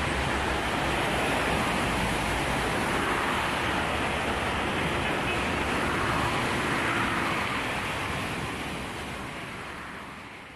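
Sea surf breaking and washing onto a pebble beach, a steady rumbling wash of waves that fades out over the last few seconds.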